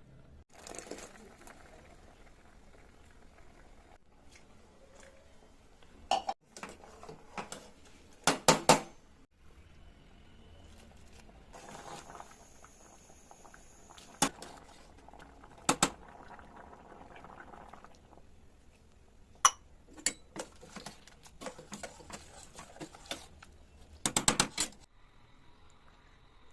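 Kitchen utensils clinking and knocking against metal cookware in scattered strokes, with a loud cluster of clinks about eight seconds in and a quick run of taps near the end. Softer scraping-like passages come between the knocks.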